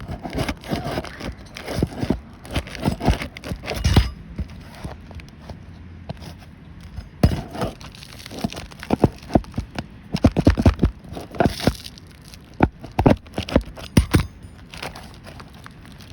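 Asphalt shingles being pried up and their nails worked out with a roof snake: irregular sharp cracks, knocks and scrapes, in a burst at the start and a denser run after a short lull. The shingles are tearing instead of releasing, which marks the roof as not repairable.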